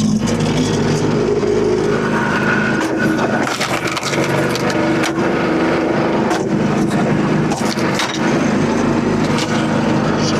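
Small gas engine of a SuperSplit log splitter running steadily, with several sharp knocks spaced a second or two apart.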